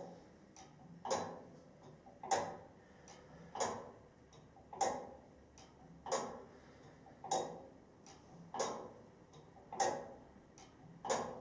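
Tower clock mechanism ticking steadily, one sharp tick about every 1.25 seconds, each ringing briefly.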